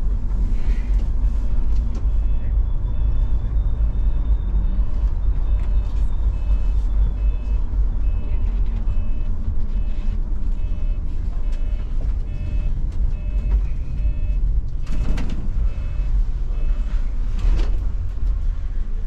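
Inside a coach bus: steady low diesel engine rumble, with a reversing alarm beeping at an even pace, about once a second, for around twelve seconds, then stopping. Two short hisses follow near the end.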